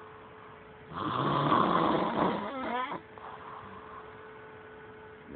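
A person snoring: one loud snore starts about a second in and lasts about two seconds, ending in a flutter. A faint steady hum runs underneath.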